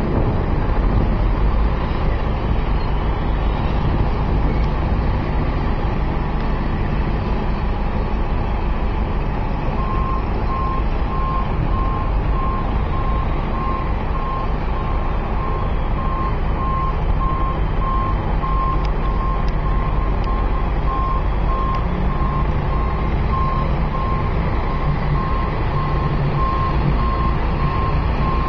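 Heavy road-construction machinery running with a steady low engine rumble. About a third of the way in, a backup alarm starts beeping at an even pace and keeps on.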